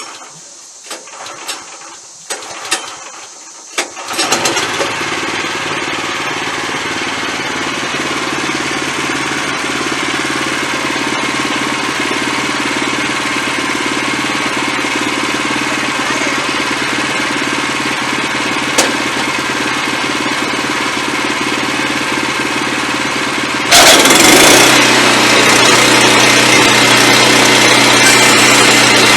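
A few clicks and knocks, then a Wood-Mizer LX25 sawmill's engine starts about four seconds in and runs steadily. Near the end it suddenly grows much louder and noisier.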